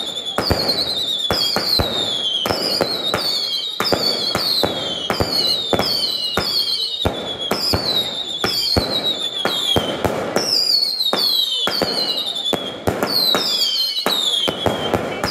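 Daytime fireworks battery firing in quick succession: sharp bangs and cracks come one after another, overlapped by whistling shells, each whistle sliding down in pitch, about two a second.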